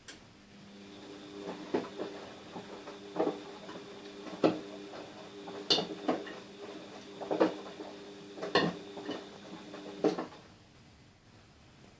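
Front-loading washing machine running a wash cycle: a steady motor hum as the drum turns, with irregular knocks about every second or so, until the drum stops about ten seconds in.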